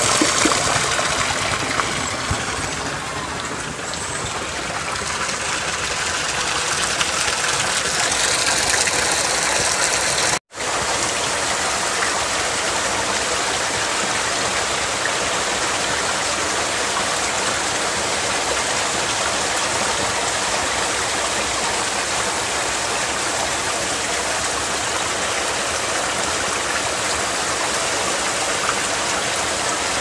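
Steady rush of spring water pouring from a bamboo pipe and running over rocks. The sound cuts out for an instant about ten seconds in.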